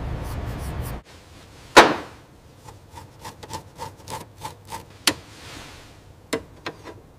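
A steady hiss cuts off about a second in. Then comes a single loud knock, a run of about eight light ticks at roughly three a second, and a few sharp clicks near the end: small hand tools tapping and clicking on metal.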